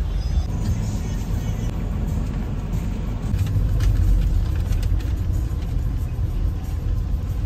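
Car engine and road noise heard from inside the cabin: a steady low rumble that grows slightly louder partway through.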